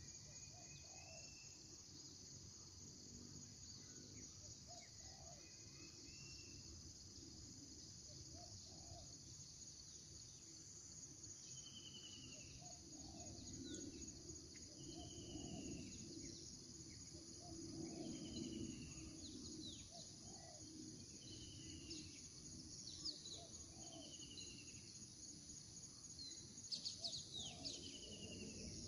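Faint morning outdoor ambience: a steady high insect drone, with a bird repeating a short falling call every second or two. A low rumble from a distant high-flying aircraft swells in the middle, and a few sharp clicks come near the end.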